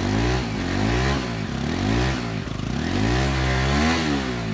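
Motorcycle engine revved up and down over and over, about once a second, as the bike sits stuck in deep mud.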